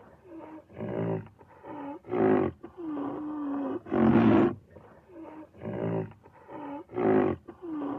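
An animal calling again and again: about four loud, rough calls roughly two seconds apart, with quieter moaning calls that bend in pitch in between.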